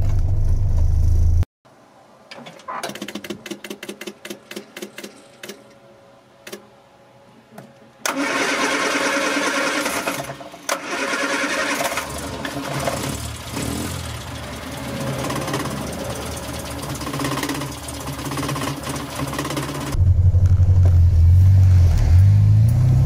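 A 1968 Morris Minor's A-series engine droning inside the cabin, cut off suddenly. A quiet stretch of rapid, uneven clicking follows. Then, about 8 s in, an engine starts and runs loudly in the engine bay. About 20 s in, the low cabin drone of the car on the move returns.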